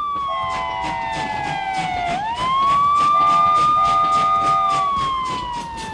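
Wailing siren: its pitch slides slowly down, sweeps quickly back up about two seconds in, holds, then slides down again near the end, over a fast, even clatter.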